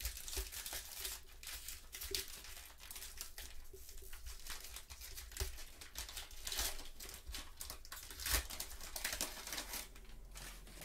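Plastic cello wrapper of a trading card pack being torn open and crinkled in the hands: a run of irregular crackles and rips that dies down near the end.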